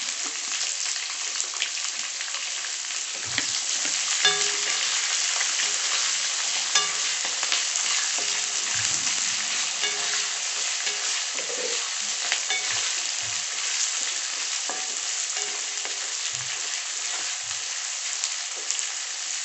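Sliced onions and peanuts sizzling in hot oil in a kadhai, stirred with a wooden spatula that knocks and scrapes against the pan every second or so.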